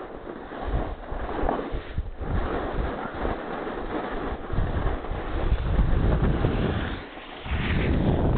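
Wind buffeting a head-mounted camera's microphone during a fast slide down groomed snow, with the rumbling scrape of the snow sliding underfoot. It grows louder about half a second in, drops away briefly near the end, then picks up again.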